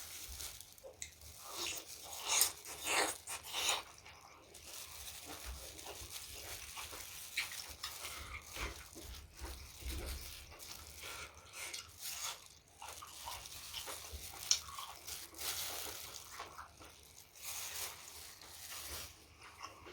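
A person chewing and biting food close to the microphone, with irregular crunches and wet clicks throughout, loudest a few seconds in.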